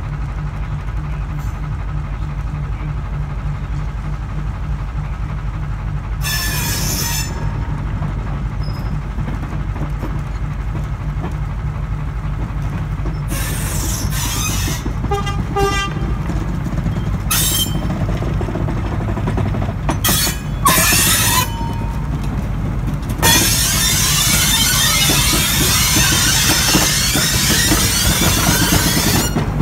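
Small diesel locomotive running with a steady low engine throb as it rolls slowly along the track, with several short bursts of noise along the way. From about 23 seconds in, a loud continuous rushing noise joins it as the train passes close by.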